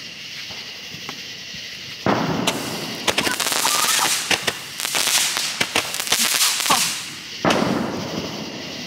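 Consumer firework going off: a sudden loud hissing spray about two seconds in, thick with rapid crackling pops for some five seconds, then one more burst near the end that dies away.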